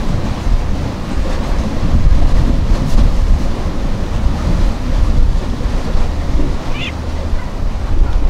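Wind rumbling on the microphone in gusts, over the wash of the sea against the breakwater.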